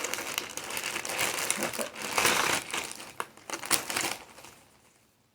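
Packaging being handled and opened, rustling and crinkling irregularly with a few sharp clicks for about four seconds, then dying away near the end.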